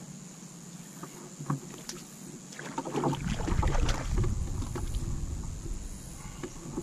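Water splashing and light knocks as a hand goes into the river beside a small wooden boat, from about three seconds in. Wind rumbles on the microphone at the same time.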